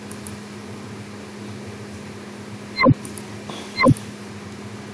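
Steady hum and hiss from a computer microphone, broken by three short, sharp clicks of a computer mouse: one near three seconds in, one about a second later, and one at the very end.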